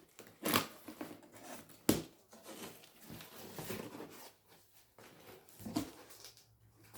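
Handling noises: a few sharp knocks, about half a second in, near two seconds and near six seconds, with soft rustling in between.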